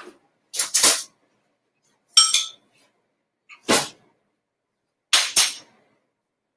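A few short clinks and scrapes of a metal spoon against a small glass bowl of vinaigrette, four separate sounds spaced about a second or more apart, one of them ringing briefly.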